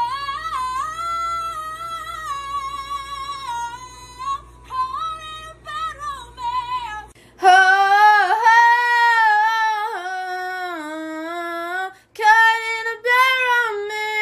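A woman singing high held notes, played back from a laptop with a steady low hum under it. About seven seconds in, another woman takes over, singing louder and lower, without accompaniment, with a brief break near the end.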